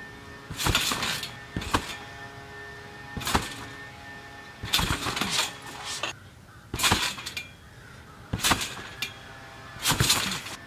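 Backyard trampoline in use: the mat and springs creak and rattle with each bounce, about seven times, roughly every second and a half.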